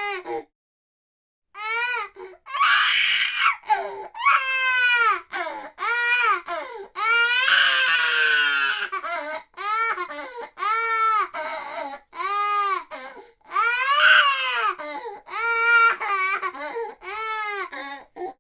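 Infant crying in a run of high-pitched wails, each rising and falling in pitch, after a brief pause near the start; one wail about halfway through is longer and louder than the rest.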